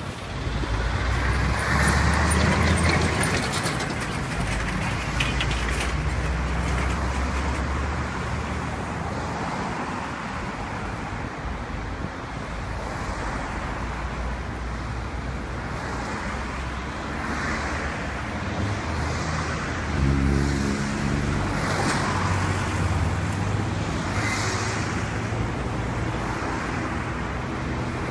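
Road traffic passing a street intersection: vehicles go by in waves of tyre and engine noise, and a vehicle's engine hum stands out from about twenty seconds in.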